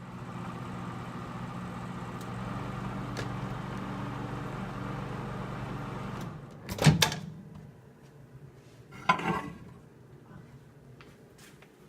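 Microwave oven running with a steady hum, heating the soaked sponge, which stops about six seconds in. A loud clunk follows about a second later, and another knock with a short rattle about two seconds after that.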